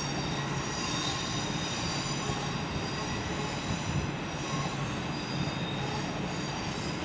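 An electric multiple-unit train moving slowly through the station: a steady rumble and running noise with faint, steady high-pitched wheel squeal over it.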